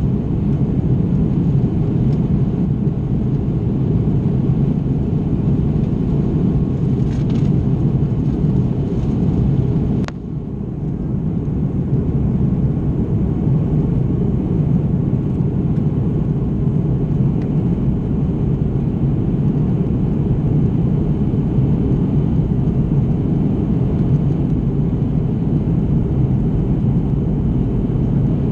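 Steady low rumble of an Airbus A330's engines and rushing air, heard from inside the cabin during the climb after take-off. About ten seconds in there is a click, and the noise briefly drops in level before it returns.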